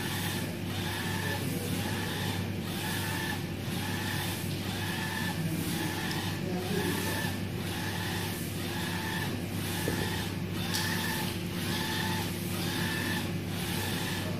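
UV flatbed printer running a print job, its printhead carriage shuttling back and forth across the bed. Each pass brings a rising and falling motor whine, just under once a second, over a steady machine hum.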